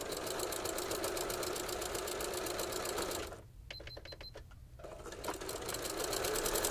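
Freshly cleaned and oiled computerized sewing machine stitching through fabric scraps at a fast, even rate on a test run. About three seconds in it stops for a second and a half while a short electronic beep sounds from the control panel, then it starts stitching again.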